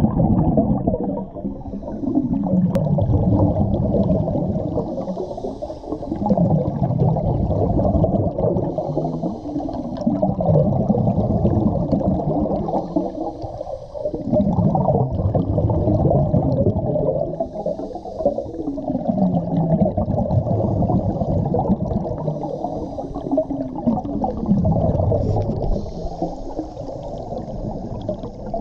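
Scuba divers breathing through regulators, heard underwater: muffled bubbling swells of exhaled air that rise and fall every three to four seconds, with a faint hiss now and then between them.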